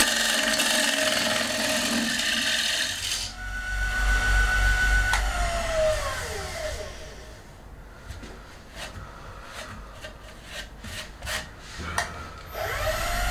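Wood lathe with a turning gouge cutting across the face of a spinning wooden disc: a scraping hiss over the motor's steady whine for about three seconds. Then the whine alone, falling in pitch as the lathe spins down about five seconds in, a few sharp knocks in the quieter stretch, and the whine rising again near the end as the lathe starts back up.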